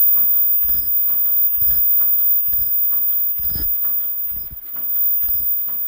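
Automatic disposable face mask making machine running: a steady cycle of mechanical clunks and clicks, with one heavy knock about every second.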